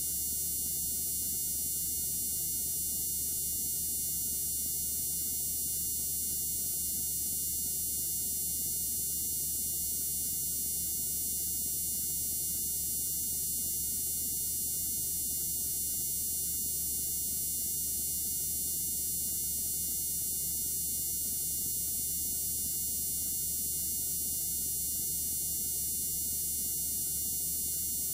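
Steady, unchanging noise: a low hum under a hiss in the high end, with no other sounds.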